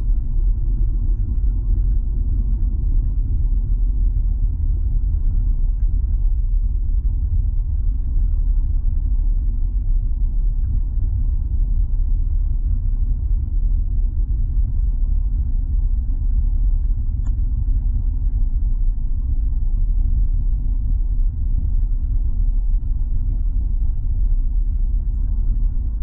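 Vehicle driving on a snow-covered road, heard from inside the cabin: a steady low rumble of engine and tyre noise.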